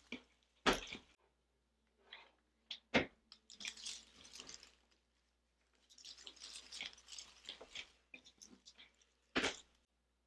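Rustling and crackling of faux flower and greenery stems being handled and tucked into a grapevine wreath, in several short runs. Three sharp taps or knocks cut through it, the loudest near the end.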